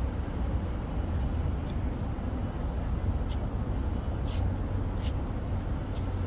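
Steady low rumble of outdoor city background noise, with a few faint high ticks scattered through it.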